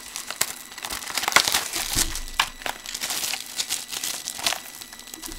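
Plastic shrink wrap being torn and crinkled off a sealed box of trading-card packs: a dense run of crinkles and sharp crackles.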